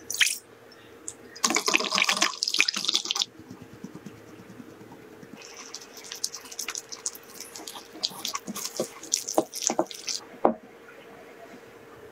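Liquid poured into a glass mixing bowl, splashing loudly for about two seconds. Then a silicone whisk stirs a dry cocoa-and-flour mix in a glass bowl, a scratchy rustle with scattered light clicks and taps against the glass.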